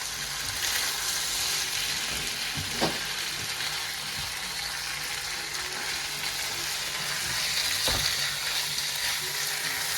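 Onions frying in a pan on a stovetop, a steady sizzle at low heat, with a couple of brief knocks around three and eight seconds in.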